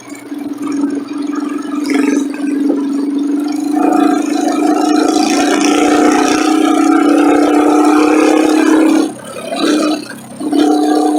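Motorcycle engine running at a steady pitch, recorded by a phone on the handlebar mount, with road and wind noise. Near the end the sound dips sharply twice and comes back.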